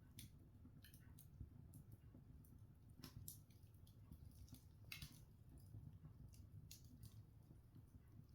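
Open log fire crackling faintly: scattered sharp snaps and pops from the burning wood, about half a dozen spread over several seconds, over a faint low background.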